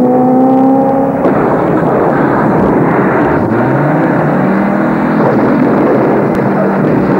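Loud vehicle engine noise over a dense rumble as a pickup truck flips over and tumbles onto its roof. A pitched engine note sounds at the start, and another rises in pitch about three and a half seconds in.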